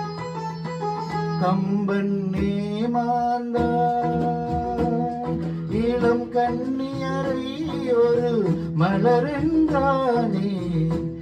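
Music: a man singing a song over an instrumental backing, with hand drumming on congas.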